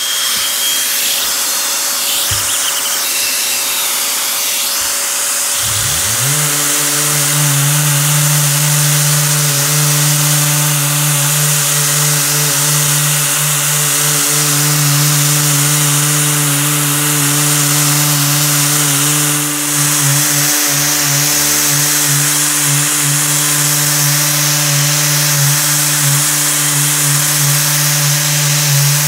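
Electric orbital sheet sander running and sanding a bare wooden tabletop, a steady hiss of paper on wood. About six seconds in, a motor hum rises in pitch and settles into a steady drone.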